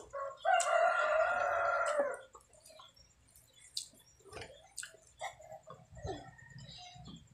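A rooster crows once, about half a second in, with a long pitched call that stops after about a second and a half. Then come soft wet clicks and smacks of hands tearing braised pork leg and chewing.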